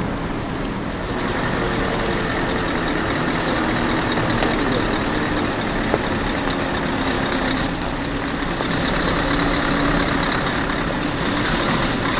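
Loaded Scania timber truck's diesel engine running steadily as the truck drives, with tyre and road noise. There is a single click about halfway through.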